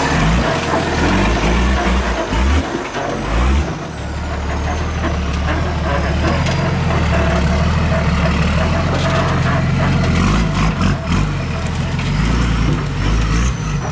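Nissan Patrol 4x4's engine running steadily under load as it crawls up a rocky trail, the note dipping briefly about three seconds in. Scattered clicks and knocks from the tyres and rocks, and a thin high whine gliding down in pitch.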